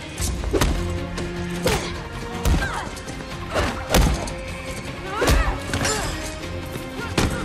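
Film fight sound effects over a background score: about six heavy punches and body slams against a wall, roughly a second apart. Short strained grunts from the fighters come between the blows.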